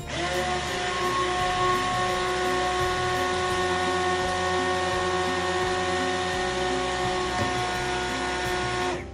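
Immersion blender switched on, its motor spinning up to a steady whine as it blends liquid soap in a stainless steel pot, then switched off near the end.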